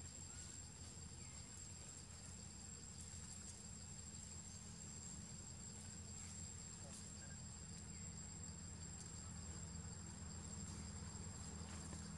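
Forest insects droning steadily in a high, even tone over a low background hum, with a few faint ticks.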